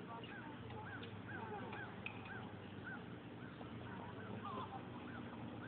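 A dog barking over and over in short, high yaps, roughly two a second, over a low steady hum.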